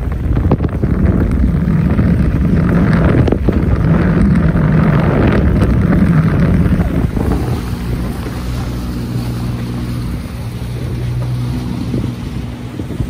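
Motorboat engine running on choppy water, with heavy wind buffeting the microphone and waves splashing. About halfway through the wind noise eases and the engine settles into a steady low drone.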